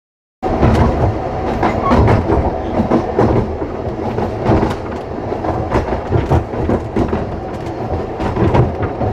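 Isle of Man Steam Railway narrow-gauge train running along the track: a steady rumble with frequent clacks of the wheels over the rail joints. It starts abruptly about half a second in.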